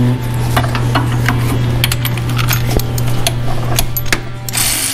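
Metal hand tools clinking and tapping on a mower's engine and steel frame: irregular sharp clicks, over a steady low hum. Near the end comes a burst of hissing noise.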